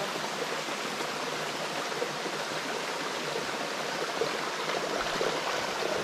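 Shallow stream running over rocks, a steady rushing. Toward the end there is light sloshing as feet wade through the water.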